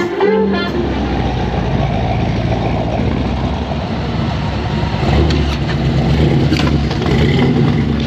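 A car engine running with a steady low rumble that swells a little about five seconds in and again near the end. A music track cuts off in the first second.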